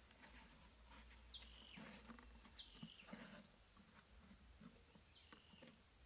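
Faint scraping and tapping of a cardboard sheet being slid and pressed into place over a hole in sandy soil. Three short falling whistles sound about a second and a half, two and a half and five seconds in.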